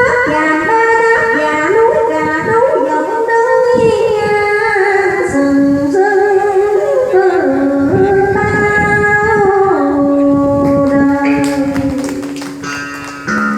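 A female voice sings a long, melismatic ca cổ phrase in Vietnamese đờn ca tài tử style, with held notes that waver and glide between pitches, over plucked-string accompaniment.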